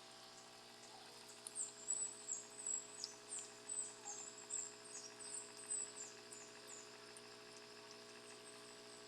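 A steady electrical hum, with a run of short, high-pitched falling chirps, about two a second, starting about a second and a half in and fading out past the middle.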